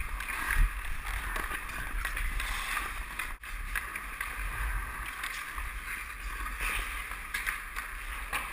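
Ice hockey skate blades scraping and carving on rink ice, heard through a GoPro with a low wind rumble on its microphone. The sound cuts out for an instant about three and a half seconds in.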